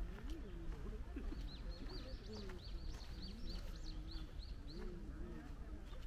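A small bird giving a quick run of high, repeated chirps, about four a second, starting about a second in and stopping near the end. Faint voices of people talking are heard underneath.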